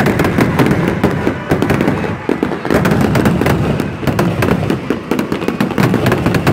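Fireworks going off: a dense, continuous run of bangs, pops and crackles.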